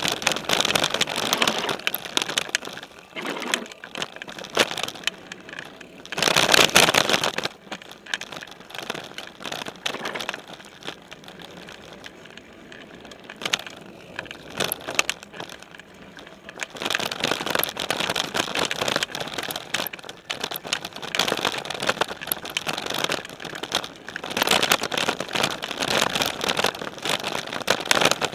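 Specialized Stumpjumper mountain bike riding over a dirt trail, picked up by a camera mounted on its frame: tyre noise on dirt with frequent rattles and clicks of the bike. It is louder and rougher at the start, around six seconds in and over the last ten seconds, and quieter in between.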